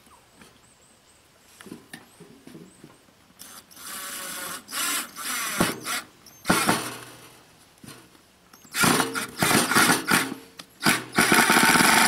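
Cordless drill/driver driving screws into wood, its motor whining in short stop-start bursts, then running continuously near the end.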